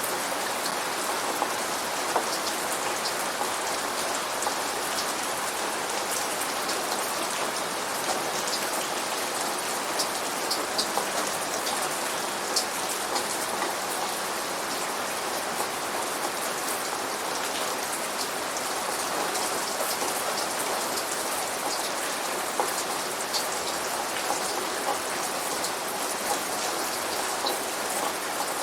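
Steady rain falling, with many scattered sharp drips and patters on top. There is no thunder.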